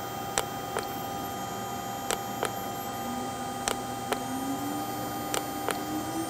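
A Laguna IQ CNC router spindle running, its whine rising slowly in pitch from about three seconds in as it is stepped up through its speed settings toward 24,000 RPM. Pairs of sharp clicks come every second and a half or so as the speed buttons on the handheld controller are pressed and released.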